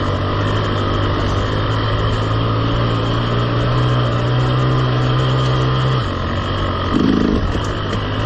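KTM 300 two-stroke enduro bike engine running on the trail at steady part throttle, its note creeping up for a few seconds. About six seconds in the engine note drops suddenly as the throttle comes off, followed by a brief louder burst.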